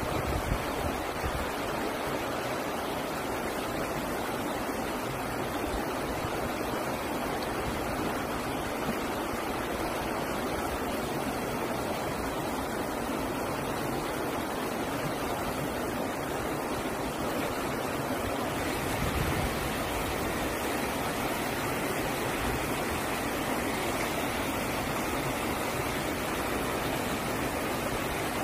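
Steady rushing noise of sea surf washing against shore rocks, turning slightly brighter and hissier about two-thirds of the way through.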